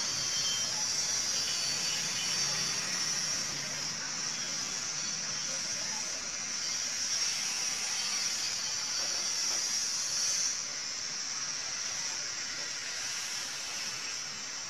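Steady hiss of an IPV8 box mod firing a sub-ohm coil at 55.5 watts (0.22 ohm) while it is drawn on hard. The hiss eases off about ten and a half seconds in.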